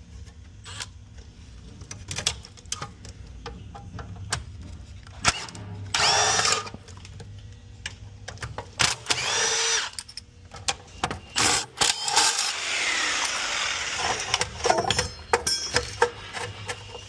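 Power drill fitted with a nut-driver bit, spinning up in several short bursts to back out screws from a boiler burner's side pan, with sharp metallic clicks and clatter between the bursts.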